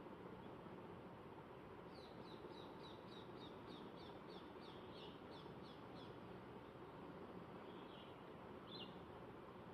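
Faint background hiss with a bird singing: a run of short high notes, about four a second, for about four seconds, then two single calls near the end.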